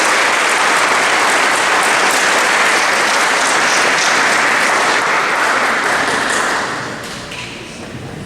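Audience applauding, steady clapping that dies away about seven seconds in.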